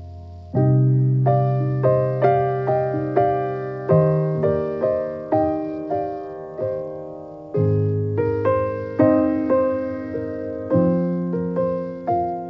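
Background piano music, a gentle piece. Low chords change about every three seconds under a melody of single struck notes that fade after each strike. It grows louder about half a second in, after a soft held note.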